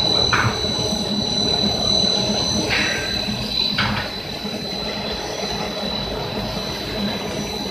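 Industrial brush sanding machine for cabinet doors running steadily: a constant high whine over a broad mechanical rumble, with a few short hisses about a third of a second in, around three and four seconds in, and just after the end.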